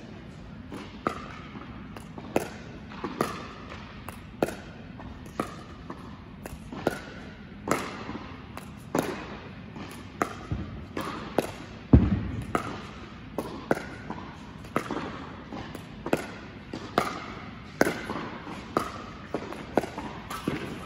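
Pickleball dink rally: paddles tapping a plastic pickleball back and forth, with the ball's soft bounces on the hard court, a sharp pop roughly every half-second to second that echoes in the large indoor hall. One heavier thud comes about halfway through.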